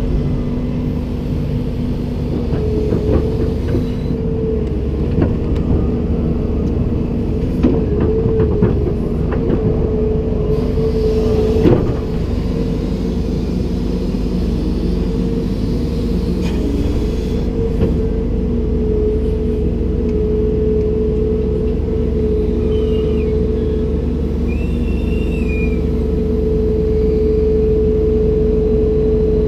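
Komatsu PC290-10 excavator's diesel engine and hydraulics running steadily with a held humming tone, with scattered clanks and a sharper knock about twelve seconds in.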